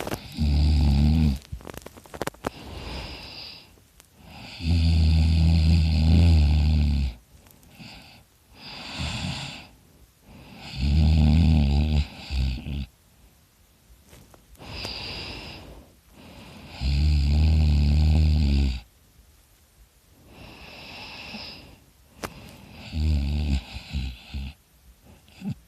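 A man snoring loudly in his sleep: five low, rough snores about six seconds apart, each lasting one to two seconds, with softer breathy sounds between them.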